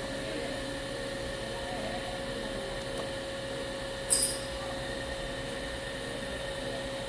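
A small electric motor, like a blower, running with a steady whirring hum. About four seconds in there is one brief, sharp high-pitched hiss.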